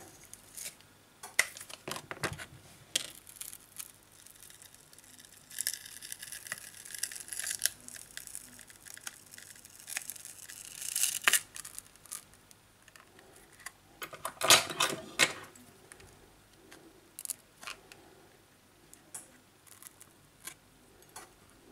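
Heated glass back cover of a Samsung Galaxy S8+ being pried and peeled off its adhesive with a thin plastic card: scattered clicks and taps, stretches of crackly, scratchy peeling noise, and a louder cluster of clicks about two-thirds of the way through.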